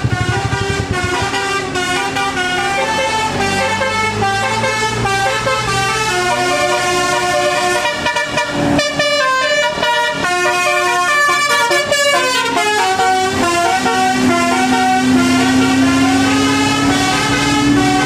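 Telolet basuri musical air horn on a tour bus playing a tune of stepped notes, several tones sounding together, over the bus's engine.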